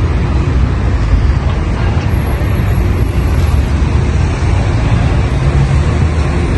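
City street traffic: a steady low rumble of vehicles on the road.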